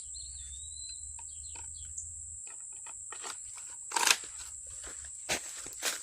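Steady high-pitched drone of insects outdoors, with a short bird chirp in the first second. Scattered light clicks and a few louder knocks or rustles of handling, the loudest about four seconds in; the chainsaw is not running.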